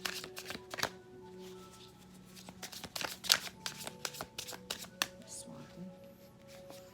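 A deck of reading cards shuffled by hand: a quick, irregular run of card slaps and rustles. Soft background music with held tones plays underneath.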